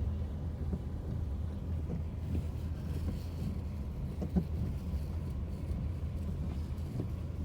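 Car running, a steady low engine and road rumble, with a few faint knocks.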